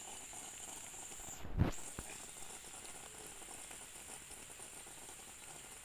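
A fishing pole being cast into a pond: a short low thump of the swing, then a single small sharp plop about half a second later as the baited line and float land on the water, over a steady high hiss.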